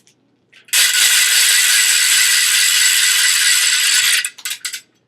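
Toy noisemaker going off: a loud, harsh, continuous sound that starts suddenly, holds for about three and a half seconds and cuts off, followed by three or four short bursts.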